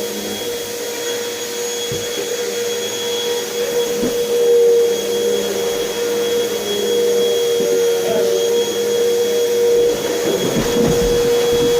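Vacuum cleaner running steadily with a constant motor whine, with a few short knocks about two and four seconds in and a rougher clatter near the end.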